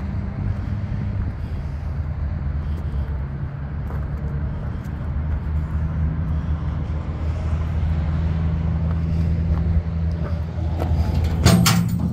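A low, steady engine-like hum runs throughout. Near the end comes a sudden, loud metallic clatter as the gooseneck's diamond-plate toolbox lid is lifted open.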